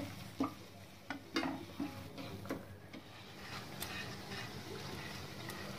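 Faint sizzle of jalebis frying in hot oil, with a few light clicks of a spatula against the pans. A steady low hum runs underneath.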